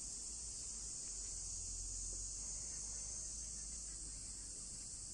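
Steady, high-pitched chorus of insects, a continuous shrill buzz that holds without pause.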